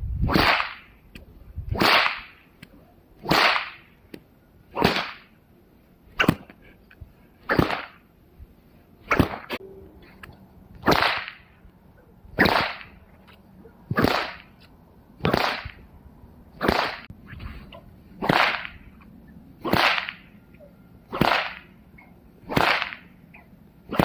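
A homemade nylon paracord bullwhip, just over 4 feet long with a braided fall and cracker, being cracked over and over in a steady rhythm, about one sharp crack every second and a half, some sixteen in all, as it is test-cracked.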